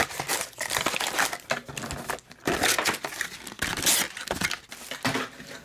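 2017 Panini Chronicles baseball card packs and their cardboard hobby box rustling and crinkling in irregular bursts as the wrapped packs are handled, lifted out of the box and stacked.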